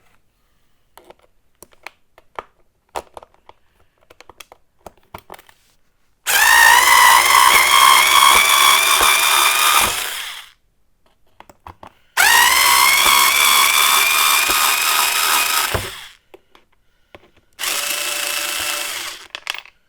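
Battery-powered 40-volt garden vacuum's electric motor and fan switched on three times, each run spinning up with a rising whine, running steady for a few seconds and then winding down. Before the first run there is light clicking and knocking of the machine being handled.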